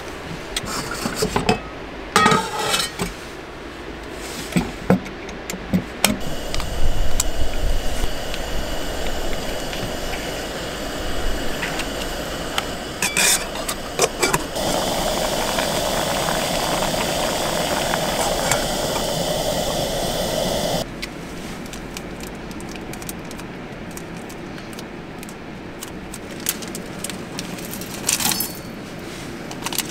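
Camping cookware clinking and a wooden box lid knocking as pots and pans are handled. Then a portable gas stove burner hisses steadily for about six seconds under a lidded pot and cuts off abruptly. Near the end a packet rustles.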